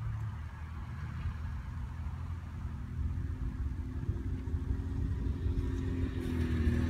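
Quad ATV engines running across a field, heard from a distance. The engine note grows louder and rises in pitch over the last few seconds as a red quad approaches.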